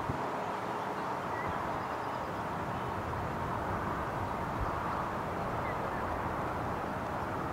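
Newag Impuls EN63A electric multiple unit pulling away, a steady rumble of running gear with a faint steady tone running through it.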